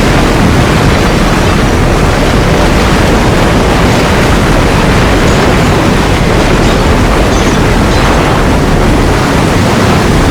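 Loud, steady rushing noise with no tones or breaks, heaviest and rumbling in the low end and thinner toward the top.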